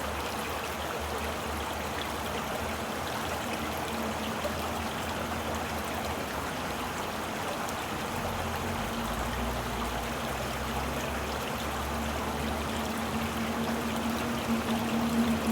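Stream water flowing steadily, a continuous even rushing and trickling.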